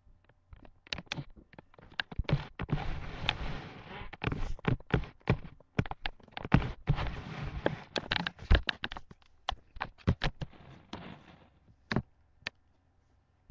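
A string of knocks, taps and scraping rustles as a person moves about right next to the microphone and gets onto a couch, with dense rustling about two seconds in and again around seven to nine seconds.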